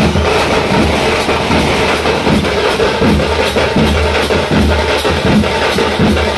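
Loud percussion-heavy music with a steady, even drum beat.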